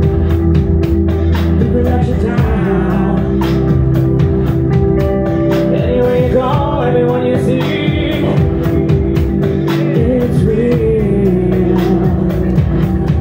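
Live rock band in full song: a male vocalist singing over distorted electric guitars, bass and a steady drumbeat.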